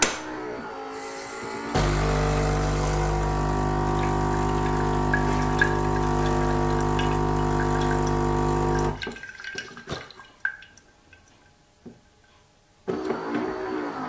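Gaggia Brera super-automatic espresso machine running its start-up rinse. After a short mechanical whir, its vibration pump buzzes steadily for about seven seconds as hot water runs from the coffee spout into a jug. The pump then stops, leaving a few drips, and a mechanical whir starts again near the end.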